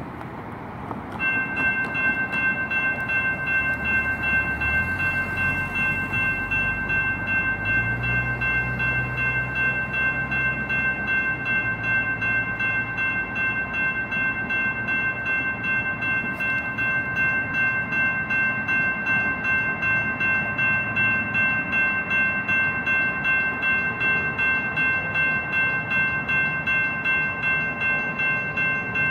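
Railroad crossing warning bell, electronic, starting about a second in and dinging in a rapid, steady rhythm as the crossing signals activate for an approaching light rail train. A low rumble is heard under it for several seconds early on.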